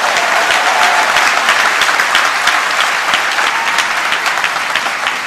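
Large audience applauding, a dense patter of many hands clapping that eases a little near the end.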